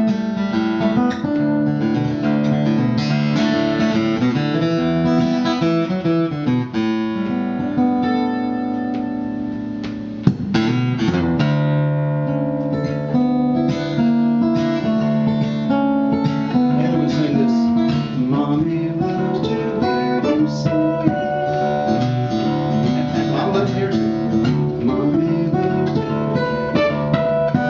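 Solo steel-string acoustic guitar played fingerstyle, with a melody picked over a steady bass line. The playing softens for a couple of seconds, then a sharp strike about ten seconds in starts a fuller passage.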